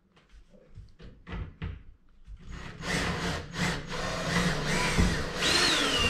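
Cordless drill boring a hole into the terrarium's ceiling panel: a few light handling clicks, then about two and a half seconds in the drill starts cutting, loud and steady. Near the end its whine falls in pitch.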